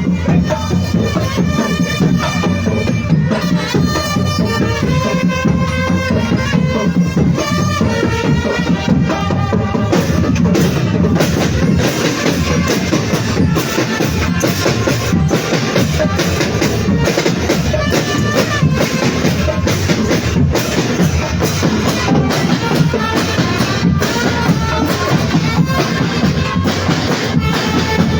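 A drumband playing: a dense, steady beat of marching drums and bass drums, with a pitched melody carried over it that stands out most in the first half.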